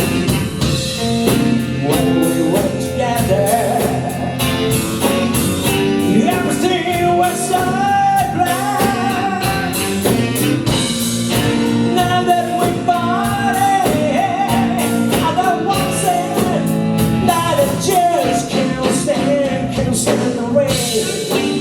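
Blues-rock band playing: drum kit with a steady hi-hat beat, bass and guitar, with a bending melodic lead line on top.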